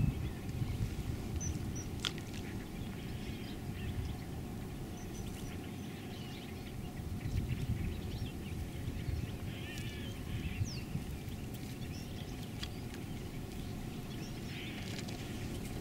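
Outdoor ambience: a low steady rumble with faint, scattered bird chirps now and then.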